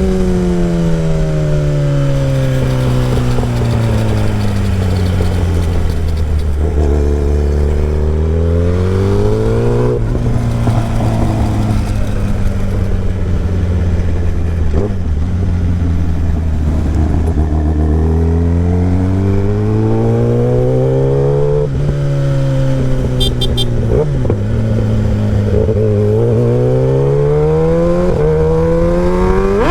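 Kawasaki ZX-10R inline-four running through a short SC Project exhaust while the bike is ridden. The engine note falls over the first several seconds as the bike slows and stays low for a while. It then rises and drops again several times with gear changes, climbing under acceleration near the end.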